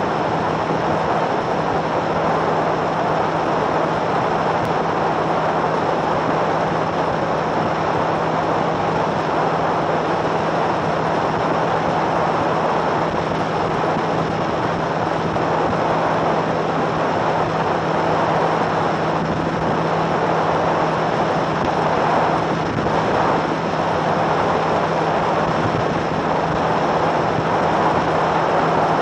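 A Phoenix bass boat running at about 78 mph: a loud, steady rush of wind and water, with a steady low hum from the outboard motor underneath.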